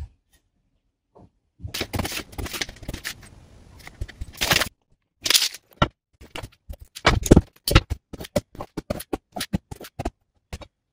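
Knife shaving slivers off a carpenter's pencil to sharpen it: about three seconds of scraping, then a long run of short, quick strokes.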